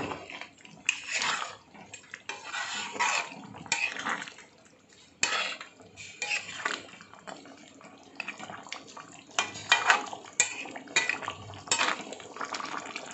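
Metal ladle scraping and clinking against the side of a large metal cooking pot as a thick curry is stirred, in irregular strokes with short pauses and one sharp clink about five seconds in.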